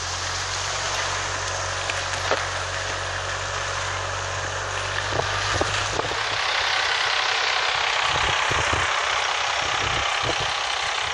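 Car engine running steadily, heard from inside the car, with a broad hiss of road or wind noise over it. About halfway through the engine hum drops away and a stronger steady hiss remains, with a few faint knocks.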